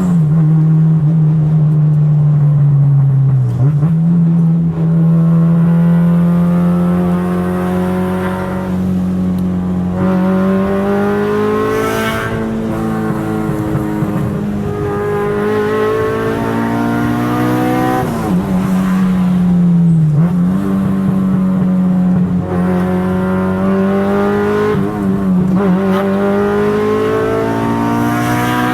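Car engine running hard at high revs, its pitch mostly holding steady, dropping and climbing back a few times, as on gear changes or lifting off.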